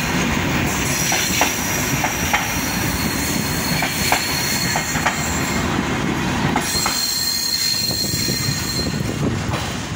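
Hyundai Rotem electric multiple-unit train passing close by, its wheels clicking over rail joints under a steady high wheel squeal. About seven seconds in the clicking stops and a different high squeal continues, as a second Rotem train comes closer.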